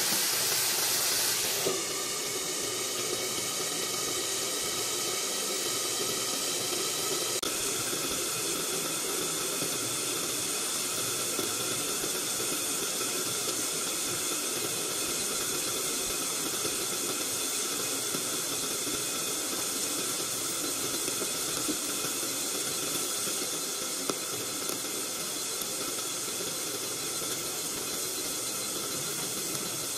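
Strips of pork fat frying in a wok: a steady sizzling hiss. About two seconds in, as the glass lid goes on, it drops a little in level and carries on under the lid.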